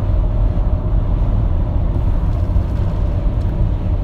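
Steady road noise inside a car's cabin while driving at highway speed: tyre and engine noise, heaviest in the low end, with no distinct events.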